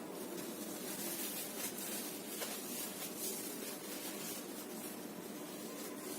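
Close-up chewing of a mini potato-filled samosa, with a few faint wet clicks from the mouth over a steady hiss.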